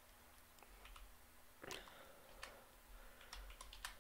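Faint, irregular keystrokes on a computer keyboard, a few scattered taps with a slightly louder one just before two seconds in, over near-silent room tone.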